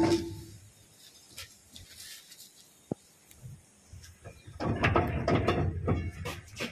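Heavy steel rear brake drum and wheel hub of a Bharat Benz 2523C truck being fitted back onto the axle. A metallic ring dies away at the start, a single sharp click about three seconds in, then a burst of metal scraping and clunking near the end as the drum slides onto the hub.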